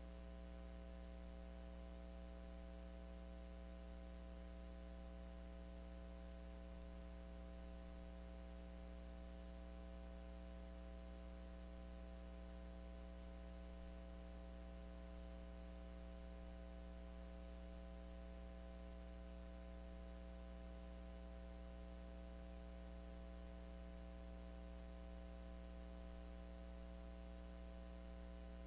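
Steady low electrical mains hum with a faint hiss, unchanging throughout; no cutting or machine sounds stand out.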